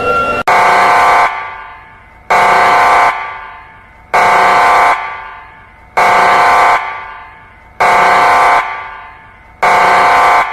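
Warning siren sounding in six short, steady, horn-like blasts about two seconds apart, each trailing off in an echo.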